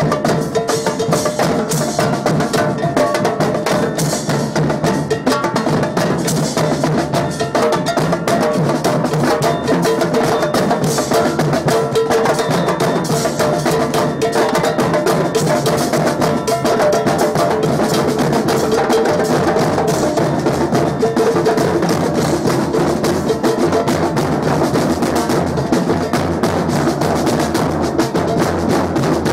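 Batucada samba percussion: a group of drummers playing continuously on metal-shelled bass drums, snare and repique drums, with a cowbell ringing through the rhythm.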